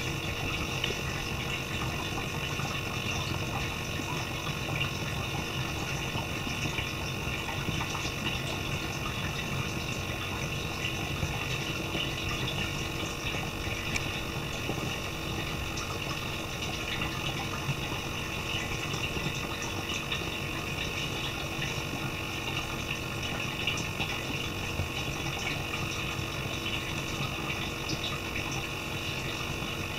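Steady rush of running water that goes on without a break, with faint steady hum tones underneath.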